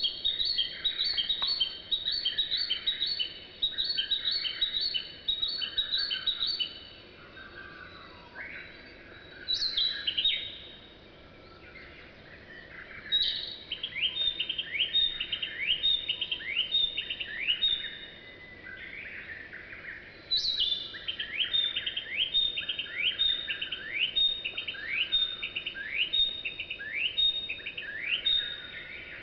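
Songbird singing: phrases of rapidly repeated high notes, several to a second, with some phrases opening on a higher, falling note and short pauses between them.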